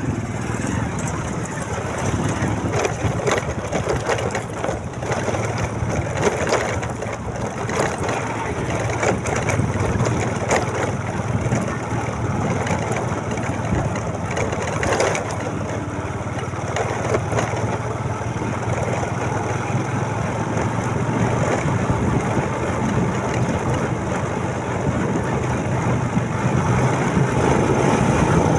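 Motorcycle engine running steadily on the move, with road and wind noise and many small clicks and knocks throughout.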